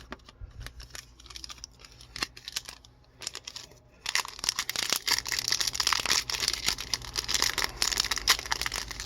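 A few light clicks and taps, then from about four seconds in the steady crinkling and tearing of a hockey card pack wrapper being torn open.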